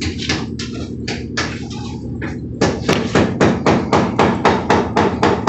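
Rapid hammering on a building site, about five blows a second, getting louder and more regular about two and a half seconds in, over a steady low hum.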